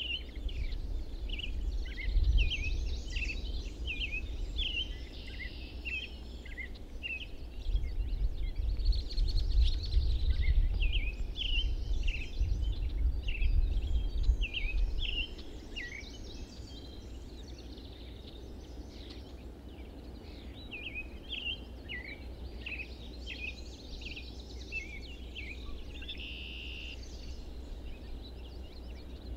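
Many birds chirping and calling in short, quick notes throughout. Under them is a low rumble that is loudest in the first half and drops away about halfway through.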